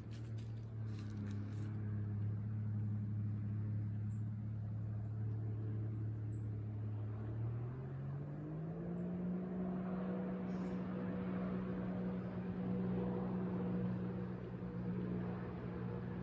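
A motor engine hums steadily, then rises in pitch about halfway through and holds at the higher note, as if throttled up. A few faint short high chirps sound over it.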